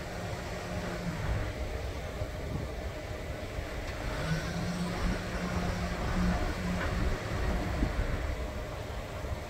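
Idling vehicle engines and road traffic making a steady low rumble, with a steady low engine hum that comes in for a couple of seconds near the middle.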